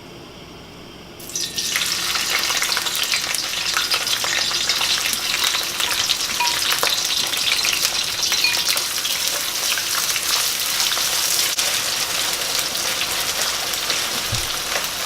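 Onions going into hot olive oil in a pan: the sizzle starts suddenly about a second in, then the onions fry steadily with constant hissing and small crackles.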